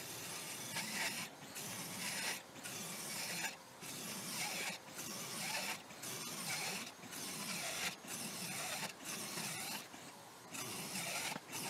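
Parkside cordless circular saw, running on its 4Ah battery, making one short cut after another through a sandwich of two 18 mm plywood sheets. Each cut is a rasping burst, about one a second, with a brief break between cuts.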